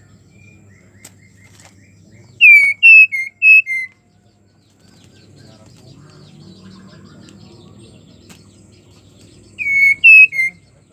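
Female white-rumped shama calling: a burst of four loud, short whistled notes about two and a half seconds in, and a burst of three more near the end, each note a quick slurred whistle. It is the call of a female in breeding condition, the kind used to stir male shamas into song.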